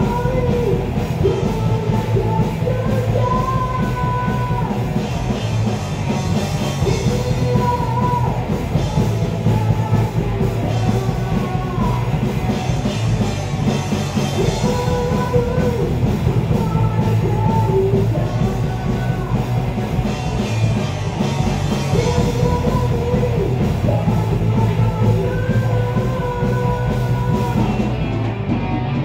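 A rock band playing live: electric guitars, bass guitar and a drum kit, with a short melodic phrase with bent notes coming back every few seconds.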